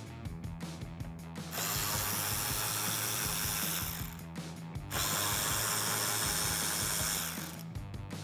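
Ratchet with a 7 mm socket backing out the headlight trim bezel screws: quick clicking for the first second and a half, then two spells of steady whirring, each about two and a half seconds, with a short pause between.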